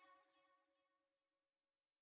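Near silence: the tail of a music track fades out and the rest is silent.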